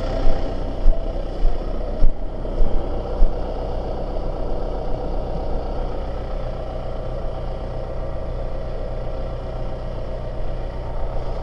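Tractor engine running steadily, with about half a dozen sharp knocks, roughly two a second, over the first three seconds.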